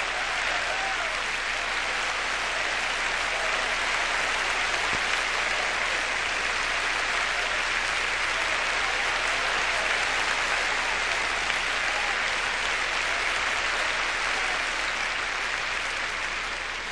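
Large congregation applauding: dense, steady clapping that begins to die away near the end.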